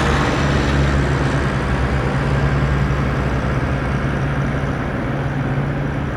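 A steady mechanical drone, like a motor or engine running, with a constant low hum and a rough noisy layer, easing off slightly in loudness toward the end.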